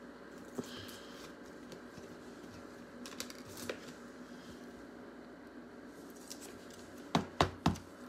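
Hands handling a trading card in a plastic sleeve: faint rustles and a few light ticks over a steady low hum, then three sharp clicks in quick succession near the end.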